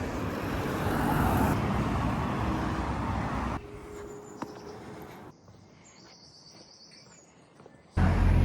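Steady outdoor background noise, like passing traffic, that cuts off suddenly about three and a half seconds in, leaving much quieter room background with a single click, then near quiet.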